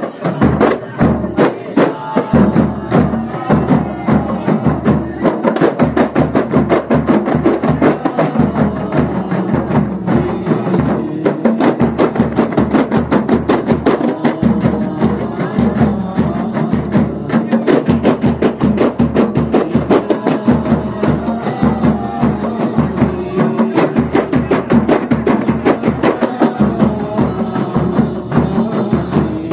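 Kompang ensemble: many hand-struck Malay frame drums played together in a fast, dense, interlocking rhythm, with a large bass drum thudding regularly underneath.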